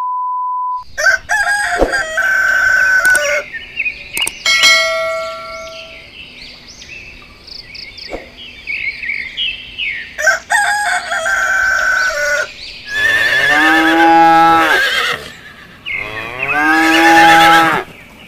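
Dubbed sound effects over a toy farm scene: a short steady test-tone beep with a TV-glitch transition at the start, then a string of farm-animal calls and clicks, ending with two long animal calls, each about two seconds, that are the loudest sounds.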